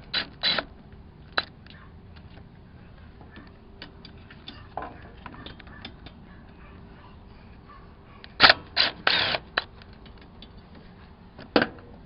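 Hand tools on metal: a 5/16 socket and ratchet clicking and clinking as the throttle assembly's bolts on a Murray lawn mower are worked loose. There are sharp clicks throughout, a few louder clanks at the start, a burst of them a little past eight seconds in and one more near the end.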